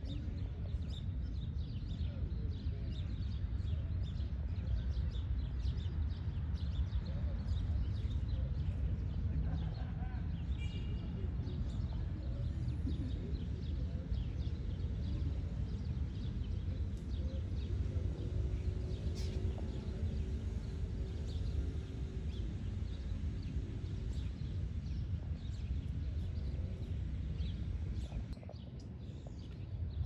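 City park ambience: a steady low rumble of city traffic with scattered bird chirps over it. The rumble dips briefly near the end.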